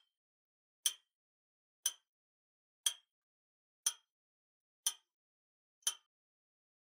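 A clock-tick sound effect ticking once a second, a sharp dry tick each time, seven ticks, stopping about a second before the end: a countdown timer running while the puzzle is on screen.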